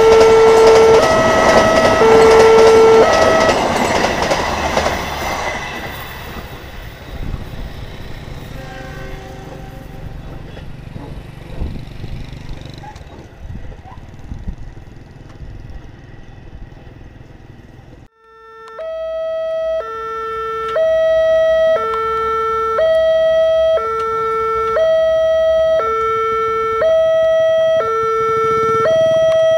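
A passenger train passing over a level crossing, its wheels and carriages loud at first and fading away over several seconds, while the crossing's electronic two-tone alarm sounds. After a quieter stretch, the crossing alarm comes in clearly again about two-thirds of the way through, stepping between a lower and a higher tone about once a second.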